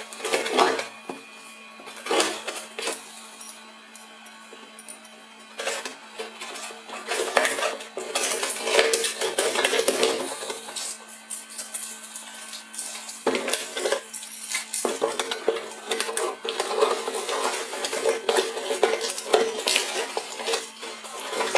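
Cardboard box being cut open with scissors and torn apart by hand, the plastic wrap around it crinkling: irregular snips, rips and rustles.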